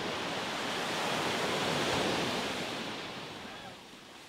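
Gentle surf breaking and washing up a sandy beach: a rushing swell that builds to a peak about halfway through and then dies away.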